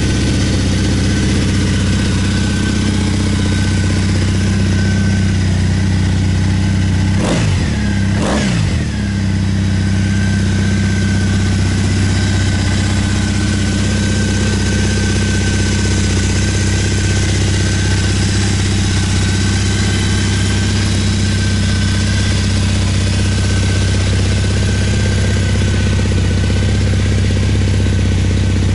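Triumph Bonneville parallel-twin engine idling steadily through its chrome exhaust. About seven seconds in the throttle is blipped twice, the revs rising and falling quickly each time, before it settles back to idle.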